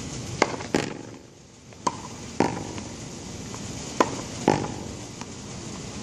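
Tennis ball hit back and forth against a practice wall with a racket: six sharp pops in three pairs, each pair a racket strike and the ball hitting the wall, over a steady background hiss.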